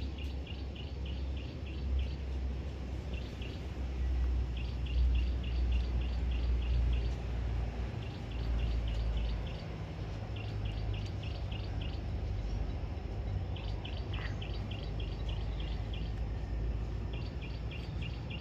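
Runs of short, high chirps, about five a second, that break off and start again every few seconds from a chirping animal, over a steady low rumble.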